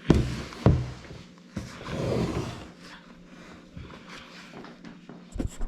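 Household handling noises: two heavy thumps in quick succession, then a longer rustling scrape and a few lighter knocks, with another thump near the end, as things are moved about in a small room.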